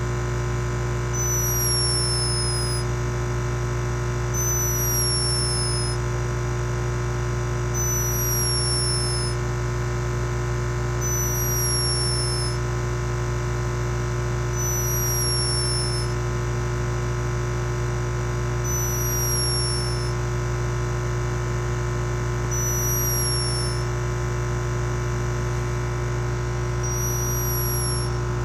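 A sleeping hummingbird's snoring: a thin, high whistle that slides downward, repeated about every three and a half seconds. Under it runs a loud, steady electrical-sounding hum.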